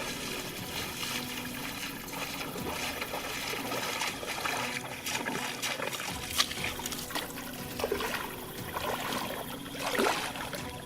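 Water trickling and splashing, with a few sharper splashes, the loudest about six seconds in and near the end.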